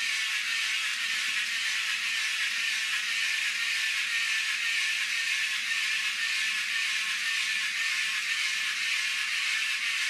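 Suction-cup wall-climbing toy running as it climbs a window: its small electric motor drives two little pumps that pull suction into the cups, giving a steady high whir.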